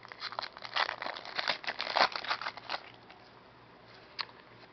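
Baseball trading cards and their crinkly pack wrapper being handled: a quick run of small rustles and crackles for about three seconds, then one sharp click near the end.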